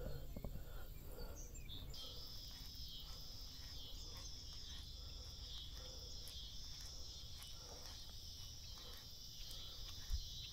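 A faint, steady, high-pitched chorus of insects, which sets in about two seconds in, over a low outdoor rumble.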